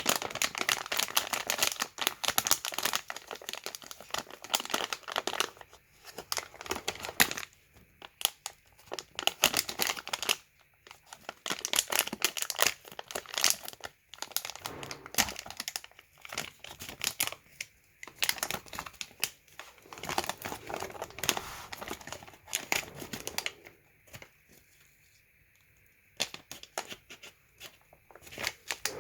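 Candy packaging crinkling and tearing as it is unwrapped by hand, in irregular bursts of crackling with a short lull near the end.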